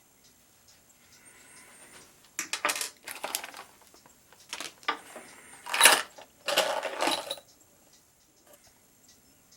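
Small metal parts clinking and rattling in several short spells, the loudest a little past the middle, typical of handling the metal pieces of a Gear Shift pen kit.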